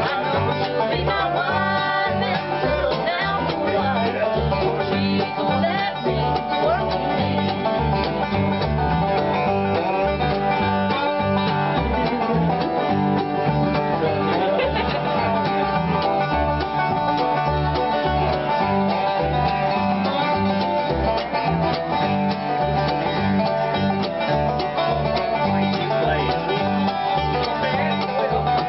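Acoustic bluegrass played on flatpicked steel-string guitar, plucked upright bass and banjo, the bass sounding a steady beat under the picking.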